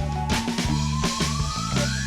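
Instrumental pop-funk backing music with a steady bass line and drum beat, over which a single high tone glides slowly upward and climbs faster near the end.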